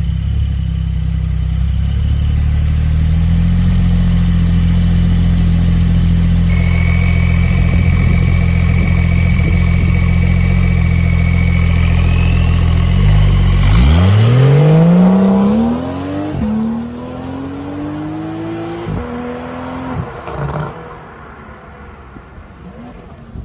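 Porsche 992 flat-six breathing through a full titanium aftermarket exhaust. It runs at a steady idle for about thirteen seconds, then revs up with a rising pitch and drops in pitch three times as it shifts up, growing fainter as it accelerates away.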